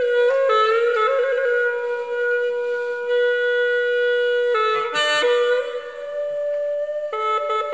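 Background music: a slow solo woodwind melody of long held notes, decorated with quick trills, with the pitch shifting about four and a half seconds in and again near the end.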